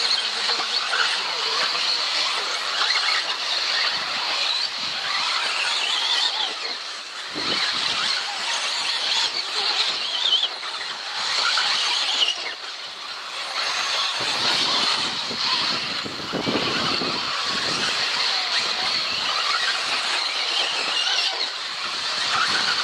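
Radio-controlled 1:10 4WD off-road buggies racing, with the high-pitched, wavering whine of their electric motors and drivetrains rising and falling as they accelerate and brake around the track.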